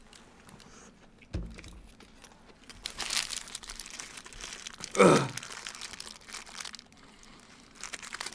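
Paper burger wrappers crinkling and rustling while burgers are handled and eaten, with a dull thump about a second and a half in. About five seconds in comes a short, loud voice-like sound that drops in pitch.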